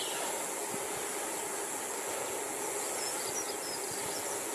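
Steady wind and road noise from a bicycle ride, picked up by a handlebar camera.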